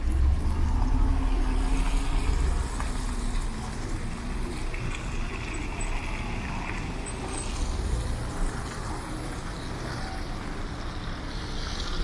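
Street traffic on a snow-covered road: a car passes close with a low engine rumble, loudest in the first two seconds, then the steady noise of traffic goes on.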